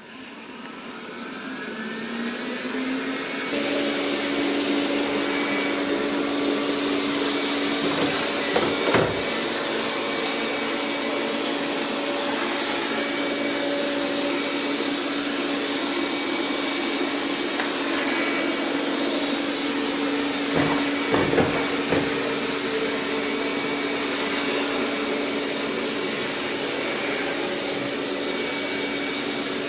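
Roborock S6 MaxV robot vacuum's suction fan spinning up with a rising whine over the first few seconds, then running steadily with a constant hum while it drives. A few knocks come about eight seconds in and again about twenty-one seconds in, as it bumps up onto and back down off a 15 mm threshold edge.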